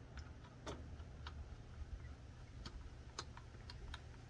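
Faint, light metallic clicks at uneven intervals as the washer and blade bolt are fitted by hand onto a circular saw's arbor.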